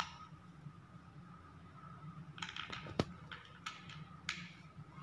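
Faint handling noises: a few light clicks and scrapes as screws are set back into an oscillating multi-tool's plastic housing, with one sharper click about three seconds in.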